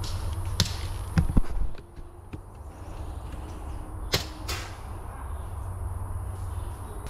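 Airsoft DMR shots: a sharp snap about half a second in, then two more in quick succession around four seconds in, with a dull thump just after a second.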